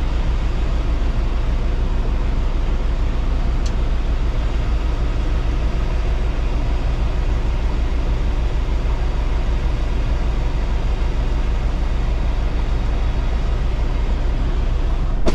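Semi-truck diesel engine idling steadily, a low, even rumble heard from inside the cab.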